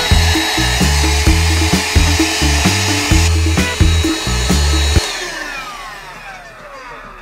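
Background music with a steady beat and a stepping bass line. About five seconds in, the bass drops out and a falling sweep fades away.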